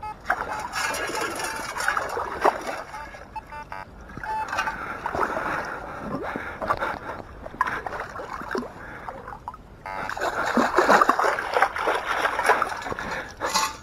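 Water splashing and sloshing as a sieve scoop is dug and shaken through lake shallows, in uneven surges that grow louder near the end. A few short metal-detector beeps sound in the first few seconds.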